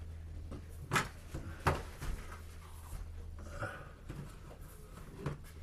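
A steady low hum with a couple of sharp clicks or knocks about a second in, then a few fainter scrapes and taps.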